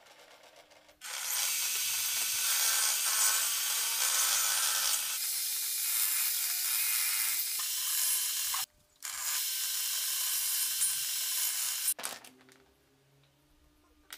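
Table saw cutting through small wooden blocks: a loud, steady hiss of the blade in the wood. It stops abruptly for a moment a little past halfway, resumes, and ends about three quarters of the way through.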